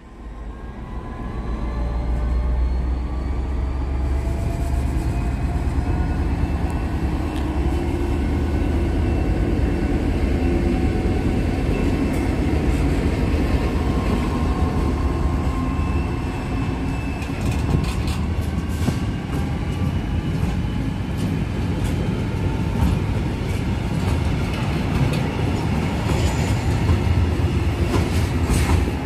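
DB Cargo MZ-class diesel locomotive passing with a deep engine drone, followed by a freight train of covered wagons rolling by. The sound fades in at the start, and from about halfway on the wheels clatter over the rail joints.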